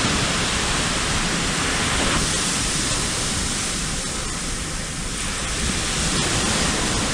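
Steady rushing noise of ocean surf on a beach, with a low rumble underneath.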